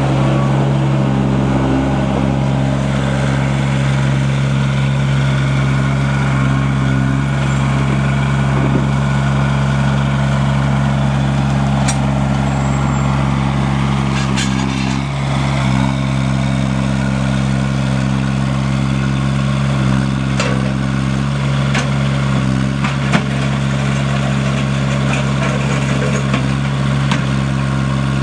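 Diesel engine of a Terramite T9 loader backhoe running steadily at a constant speed, with a few sharp clicks and knocks over it.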